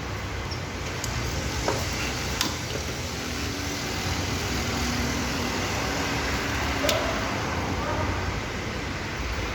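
Steady background noise of a mechanic's workshop, with a few light clicks scattered through it.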